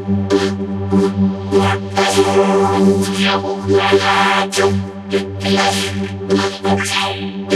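A cartoon sneeze-and-hiccup chorus run through Image-Line's Vocodex vocoder, so the voices come out as synthesizer-like tones over a steady low drone. Frequent sharp sneeze and hiccup bursts, a few a second, break through.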